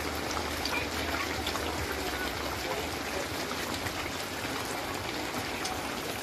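Steady hubbub of a dense market crowd: many people talking at once, with no single voice standing out.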